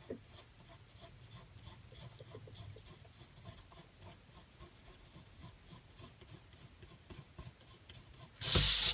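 Pencil scratching on paper in quick, short repeated strokes as crossing hatch lines are drawn close together. A brief louder rustle comes near the end.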